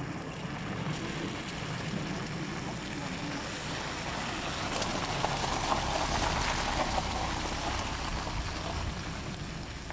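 Car on the move, heard from inside the cabin: a steady low engine and road drone, with a rushing noise that swells about halfway through and eases off again.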